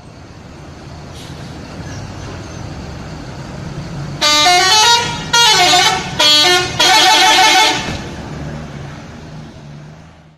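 Bus 'telolet' horn playing its multi-note melody in four loud blasts, the notes stepping up and down in pitch, the last blast the longest. A bus engine rumble swells before the horn and fades after it.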